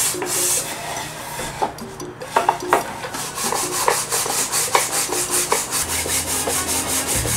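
A wooden box's edge being sanded by hand with a sanding block: sandpaper scrubbing on wood in quick, even back-and-forth strokes, several a second, settling into a steady rhythm about halfway through, after a few light knocks of wood on wood.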